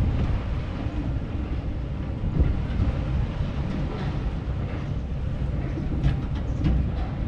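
Auto chair ride's seat running along its track: a steady low rumble from the mechanism, with a few sharp clicks and clacks.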